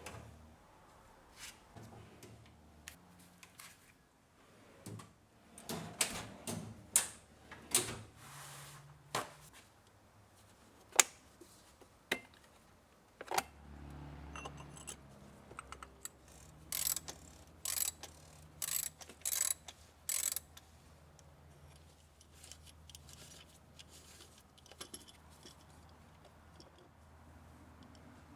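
Tools and metal parts being handled during an oil filter change: scattered clinks, knocks and scrapes, then a run of short sharp clicks about two-thirds of the way in. A faint steady low hum comes in about halfway.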